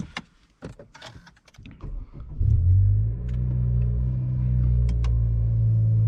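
A few clicks and knocks, then, a little over two seconds in, a Honda Civic FK7 hatchback's 1.5-litre turbocharged four-cylinder engine starts. It flares briefly and settles into a steady idle.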